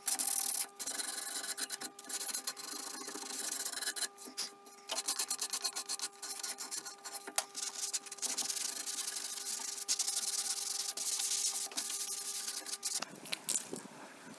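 Sandpaper rubbed by hand over a wooden chair seat in rapid back-and-forth strokes, with a steady hum underneath. The rubbing and the hum stop about a second before the end.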